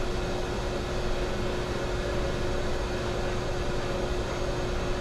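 Steady electric motor hum with a constant tone, running unchanged throughout.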